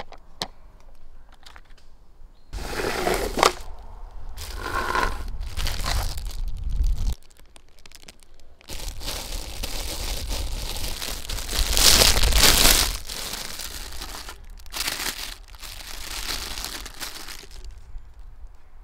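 Thin plastic bag crinkling and tearing as a cheap toy water pistol is unwrapped from it by hand, in two long stretches of rustling with a short pause between, loudest a little past the middle.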